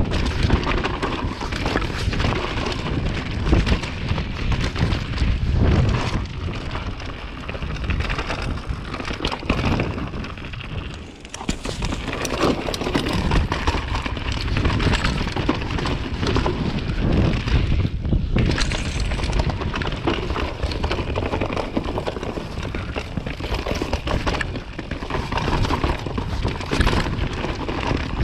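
Trek full-suspension mountain bike ridden fast down a rocky, muddy singletrack: a constant rumble of knobby tyres over stones and roots, with frequent knocks and rattles from the bike. It eases briefly about eleven seconds in.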